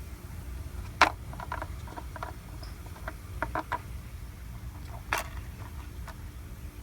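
Scattered sharp clicks and light taps, the loudest about a second in and another just after five seconds, over a low steady hum.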